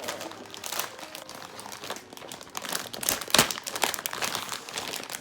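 Plastic bags crinkling and being torn open, getting louder and busier from about three seconds in.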